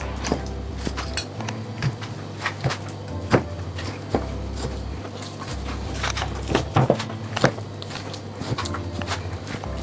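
Kitchen knife cutting and trimming membrane from a raw leg of lamb on a wooden chopping board, the blade giving scattered sharp taps and knocks on the board. Soft background music with a steady bass runs underneath.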